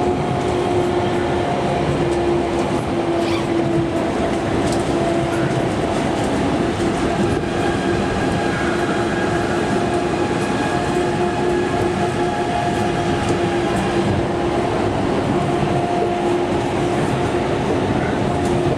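Osaka Monorail straddle-beam car running at speed, heard from inside the cabin: a steady rumble from its rubber tyres on the concrete guideway with a hum held at one pitch.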